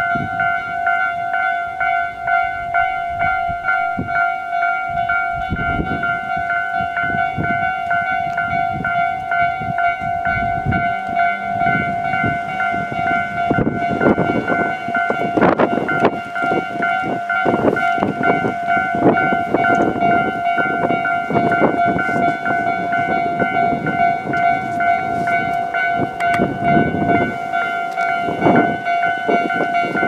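Japanese railway level-crossing warning bell ringing throughout, a steady pulsing electronic ding. From about halfway in, a train passes over the pointwork, its wheels clattering and knocking irregularly.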